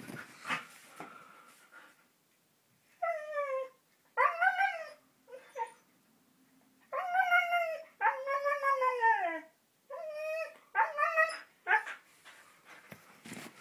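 Siberian husky "talking": a run of about eight drawn-out whining, howl-like calls, each arching up and falling in pitch, with short pauses between. The dog is excited and asking to go out for a walk.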